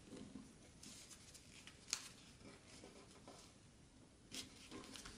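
Faint rustling and crinkling of a square sheet of paper being folded and creased by hand, with a sharper crackle about two seconds in and another a little before the end.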